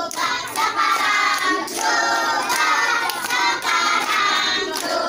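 A group of children singing a song together, clapping along.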